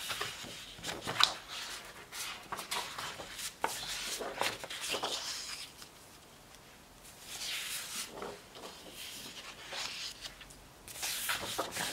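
Sheets of thin designer paper being handled and turned over, rustling and sliding against one another with short crackles, quieter for about a second around the middle.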